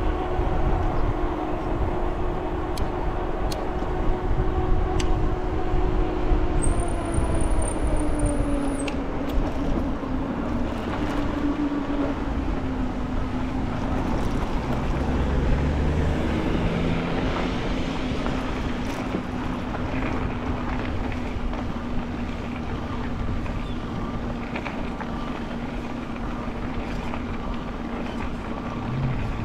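Electric bike's hub motor whining as it rides, over steady wind and tyre noise; the whine drops in pitch about eight seconds in, then holds steady.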